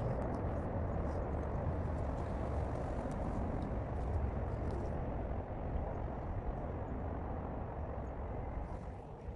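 Steady rumbling noise of wind on the microphone, with a few faint clicks.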